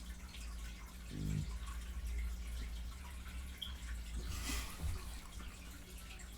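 Close-miked wet smacking and chewing of someone eating fried chicken: a scatter of small wet clicks, with a short low throaty sound about a second in and a brief hiss of breath or air at about four and a half seconds. A steady low electrical hum runs underneath.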